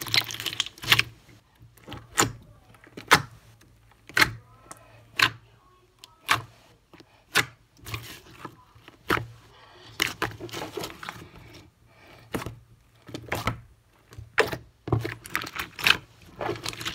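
Green glitter slime being squeezed and folded by hand, giving sharp clicking pops as trapped air bursts. The clicks come about once a second at first, then in quicker clusters in the second half.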